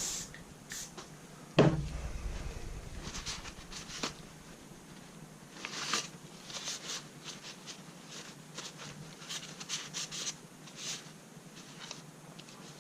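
Handling and wiping of rifle parts during cleaning: scattered small clicks and rubbing, with one louder knock about one and a half seconds in.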